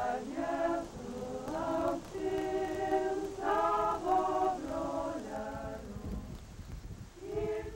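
A choir singing a melody in held notes.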